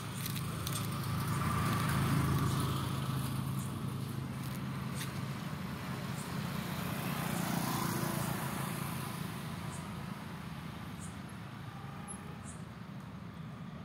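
Road traffic: cars passing on a road, each swelling and fading, with louder passes about two and eight seconds in over a steady low hum.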